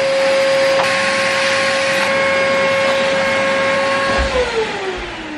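Stainless-drum wet-and-dry canister vacuum cleaner running with a steady high motor whine. It is switched off about four seconds in, and the whine falls in pitch as the motor winds down.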